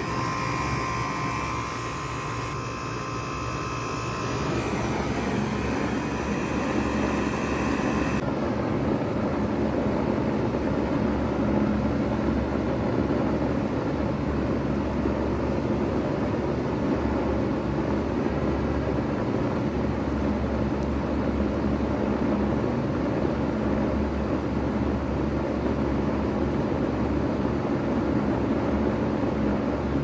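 2002 Bard 3-ton wall-hung heat pump running steadily in cooling mode: compressor hum and condenser fan air rush. A higher whine over it drops away about eight seconds in.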